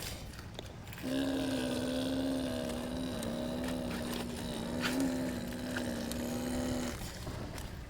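Radio-controlled model excavator's electric motor and hydraulic pump whining at a steady pitch while the machine works, starting about a second in and cutting off near the end, with a few light clicks.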